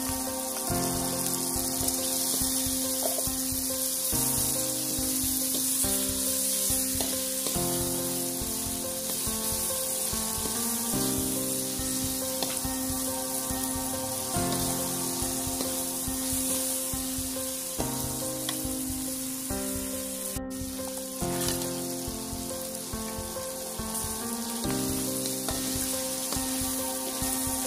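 Chillies, tomato and fried milkfish sizzling in a hot wok as a metal ladle stirs them, a steady frying hiss. Background music runs underneath with its chords changing every second or two. The sound cuts out for an instant about two-thirds of the way through.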